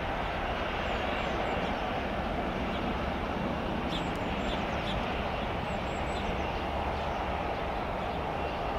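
Boeing 737-800's CFM56-7B jet engines running steadily at taxi power, an even hum and hiss. A few short high bird chirps come through in the middle.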